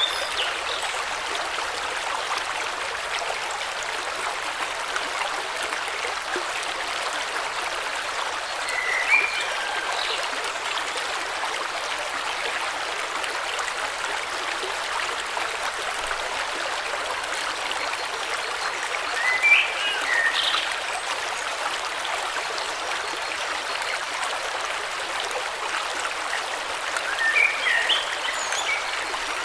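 A river stream flowing steadily, with a few short bird chirps: once about nine seconds in, a cluster around twenty seconds and again near the end.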